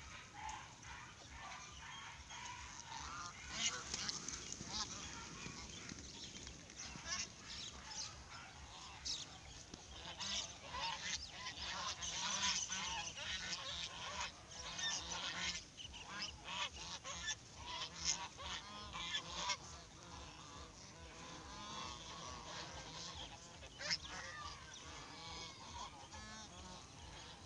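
A flock of domestic geese honking, with many calls overlapping. The calling is busiest through the middle and thins out toward the end.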